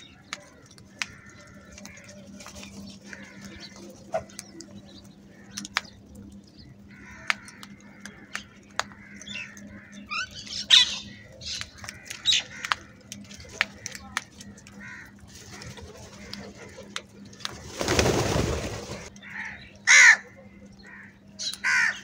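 House crows feeding on grain spread on concrete: sharp pecking clicks throughout, with loud harsh caws, the loudest about halfway and again near the end. About three-quarters of the way through comes a rush of noise lasting about a second.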